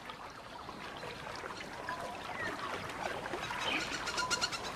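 Waterside ambience: water lapping and splashing, with faint short bird chirps scattered through it and a brief patter of small splashes near the end.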